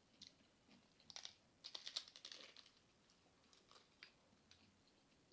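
Faint, crisp crackling and crunching of a hard taco shell, in a few quick clusters of clicks, the main one about two seconds in.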